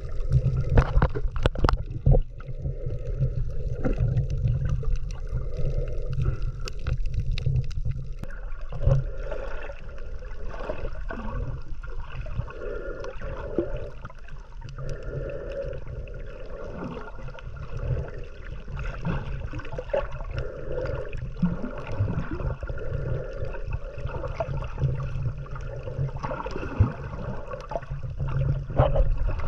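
Underwater sound from a camera held below the surface while snorkelling: a steady low rumble with water sloshing and gurgling. A few sharp clicks come in the first couple of seconds.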